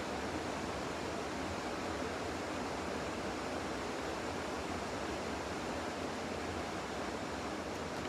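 Steady, even background hiss with no distinct events.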